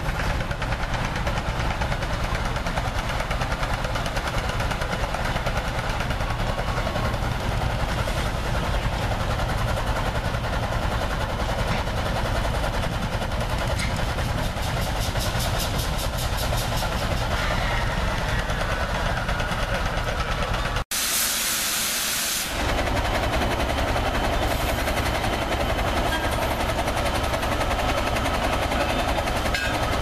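Stationary steam engines running steadily with steam hissing, and a louder burst of hissing steam lasting about a second and a half, about two-thirds of the way through.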